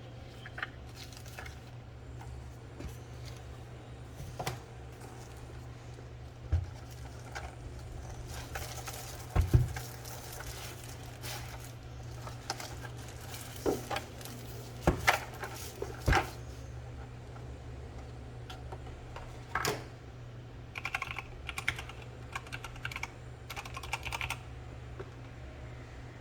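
Keys being pressed on a Keychron K8 mechanical keyboard with Gateron Red linear switches: scattered single keystrokes and a few louder thumps through the middle, then several quick runs of typing near the end. A low steady hum lies underneath.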